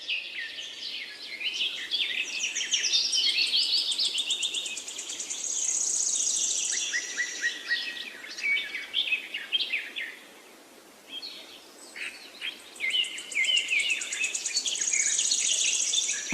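Several small birds chirping and singing, with a fast high trill now and then and a short lull a little past the middle.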